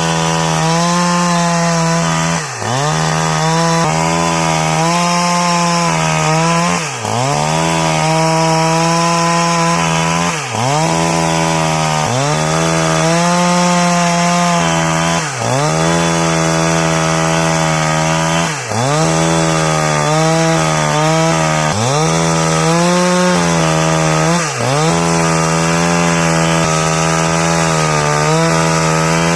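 Husqvarna 365 Special two-stroke chainsaw at high revs, ripping lengthwise through a laban wood log to split it. The engine speed dips sharply and recovers about every three to four seconds, seven times in all.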